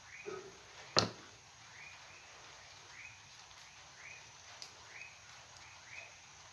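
A single sharp knock about a second in, as the hot glue gun is set down on the work table. Under it, faint short chirps repeat about twice a second from an animal in the background.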